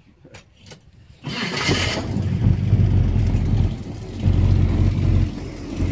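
1970 Chevrolet Camaro's 350 V8 started with the key: a few faint clicks, a brief crank about a second in, then it catches and settles into a steady, low idle.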